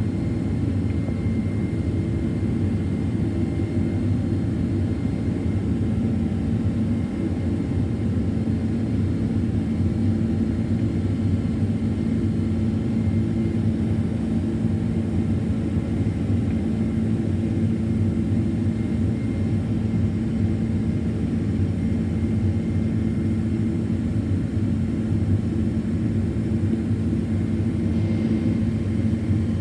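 Steady cabin drone of a Boeing 767-400ER's jet engines and airflow, heard from inside the cabin: an even low rumble with a faint steady whine above it.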